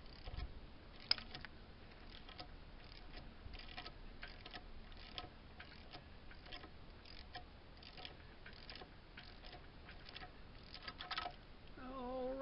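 Faint, irregular metallic clicks and taps of hand tools working on a stripped-down engine, about one or two a second, with a sharper click about a second in.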